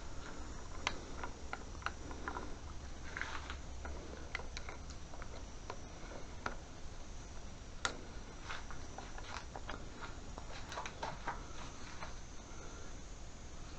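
Irregular small clicks and light taps of hands and a tool working on a motorcycle's start-switch housing, which is being taken apart, over a low steady hum.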